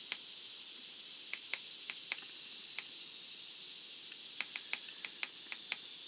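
Short clicks of the JBL PRV-175 marine radio's buttons, pressed a dozen or so times at an uneven pace while cycling through its source modes, over a steady high hiss.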